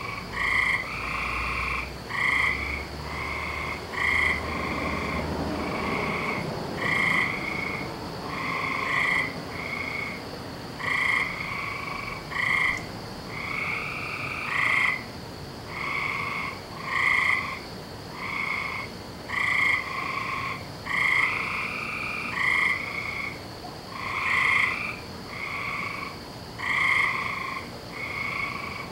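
A chorus of frogs croaking, several calling over one another in short repeated calls about once a second. A faint low rumble lies under the first few seconds.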